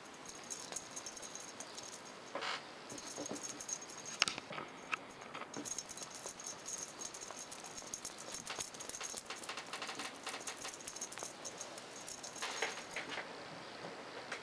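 A small object being shaken, rattling and jingling in irregular runs of quick clicks, with short breaks about four and twelve seconds in.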